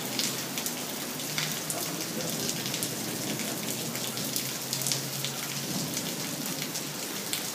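Heavy monsoon rain pouring down steadily, with occasional sharp taps of individual drops.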